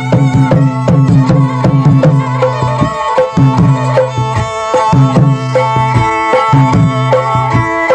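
Background music: a fast, busy hand-drum rhythm over held melodic tones.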